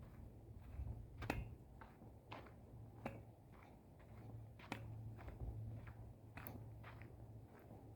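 Footsteps on a dry dirt trail, faint irregular scuffs and clicks about once a second, over a low steady rumble.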